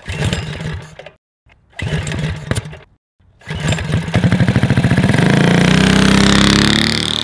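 Small engine revving in three edited clips, cut off sharply into silence between them; the last and longest clip climbs in pitch and holds at high revs before easing off.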